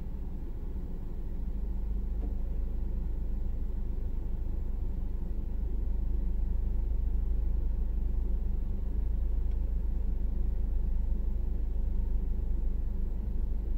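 Steady low rumble inside a parked car's cabin, growing slightly louder about two seconds in.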